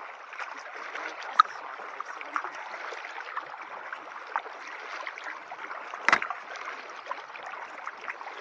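Kayak paddling: steady splashing and trickling of water from the paddle blades, with many small drips and clicks. About six seconds in there is one louder thump.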